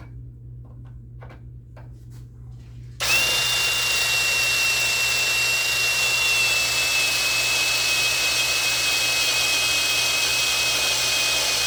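Power drill with an oiled step bit cutting into a piece of steel. It starts up about three seconds in and runs steadily under load, with a high whine that sags slightly in pitch. A few faint handling clicks come before it starts.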